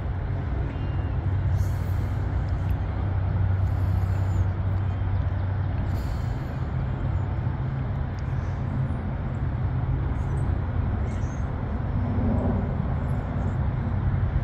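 Low, steady drone of a towboat's diesel engines pushing barges upstream.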